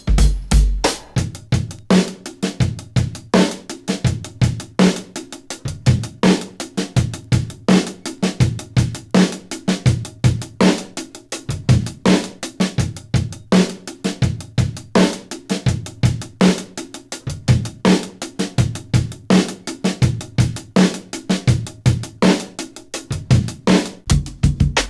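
Music driven by a drum kit: bass drum and snare keeping a steady beat, with cymbal or hi-hat hits.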